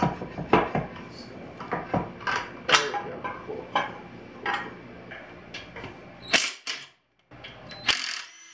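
Irregular metal clicks and knocks from a Nissan CD009 manual transmission's front cover and gear shafts as the cover is worked loose and pulled off by hand. There are two louder bursts near the end.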